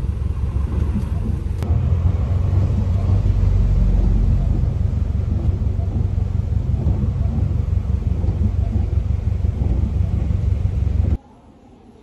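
Low, steady rumble of a car's engine and road noise heard from inside the cabin in heavy rain. It gets louder about two seconds in and cuts off abruptly near the end, leaving quiet room tone.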